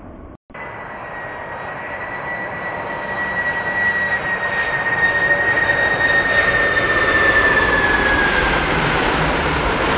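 Kalitta Air Boeing 747-400 freighter on final approach with its gear down. Its four turbofan engines whine with a steady high tone over a broad rush that grows louder as the jet closes in, and the tone dips slightly in pitch near the end as it passes. The sound drops out briefly about half a second in.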